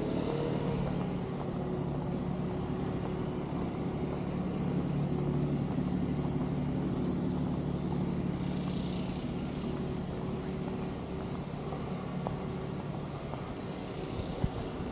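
Steady motor hum: a low drone with a fainter, higher steady tone above it, and one short click near the end.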